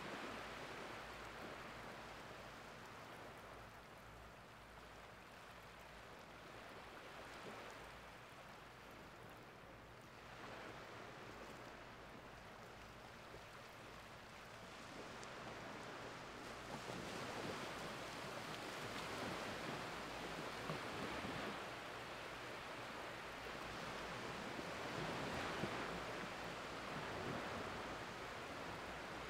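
Small, gentle waves of an incoming tide washing over flat, wet sand: a soft hiss that swells and ebbs, fuller in the second half.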